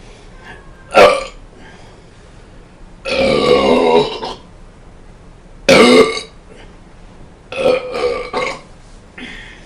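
Loud belches, one after another: a short one about a second in, a long, drawn-out belch lasting over a second about three seconds in, another just before six seconds, and a quick string of short belches near the end.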